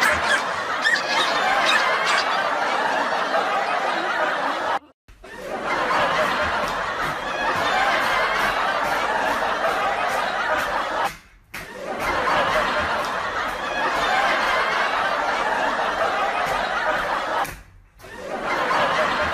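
Continuous laughter, broken by short silent gaps about every six seconds.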